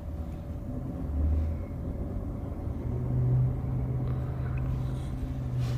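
Inside a moving car: steady low rumble of road and engine noise, with a low drone that becomes steadier and a little louder about three seconds in.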